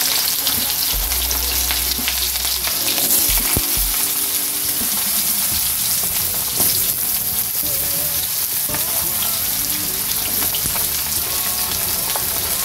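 Raw jackfruit pieces sizzling as they go into hot mustard oil in a kadhai: a steady frying hiss, with now and then a faint click.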